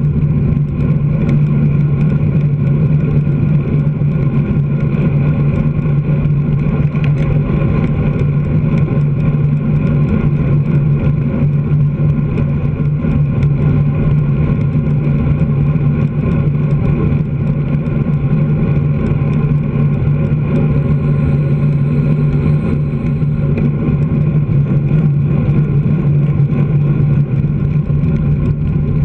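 Steady low drone of a tipper truck's diesel engine running at constant speed just ahead, mixed with road and wind rumble, heard from a bicycle-mounted camera.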